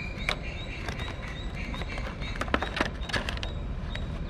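Cardboard box and clear plastic packaging tray handled and slid out: scattered rustles and light clicks, a cluster of them after about two and a half seconds. Faint bird chirps and a steady low background rumble sit behind them.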